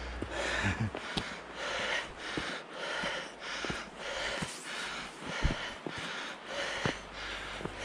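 A hiker breathing hard and fast while climbing a steep snowy path, about two heavy breaths a second, with a few sharp clicks between them.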